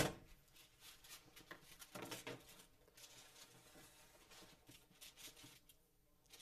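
A wooden spatula faintly scraping and spreading sticky peanut brittle mixture across a foil-lined sheet pan, with a sharp knock right at the start.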